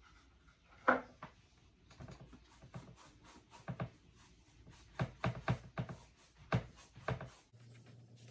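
Paintbrush dabbing and scrubbing paint on a plastic palette and on a canvas: a run of short, irregular taps and rubs, closest together from about two seconds in.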